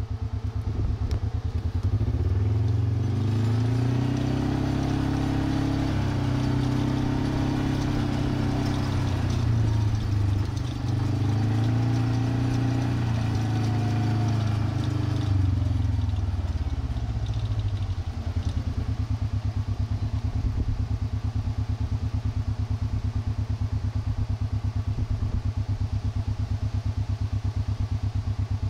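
A vehicle engine running, with a steady fast low pulse at idle. From about two seconds in to about eighteen seconds the engine note rises and falls as the vehicle drives, then settles back to an even idle.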